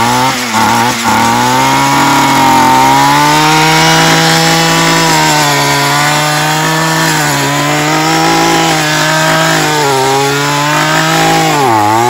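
Gas-powered string trimmer running at high speed while cutting weeds, its engine note steady apart from a few brief sags, the deepest just before the end.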